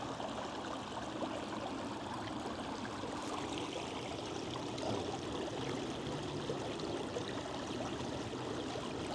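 Shallow rocky creek running steadily over stones.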